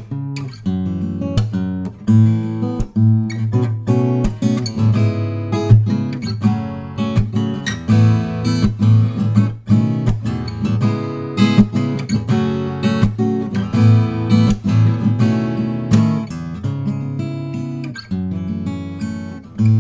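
Sqoe S200-FG acoustic guitar, with a solid cedar top and black walnut back and sides, played with a mix of strummed chords and picked notes that ring on.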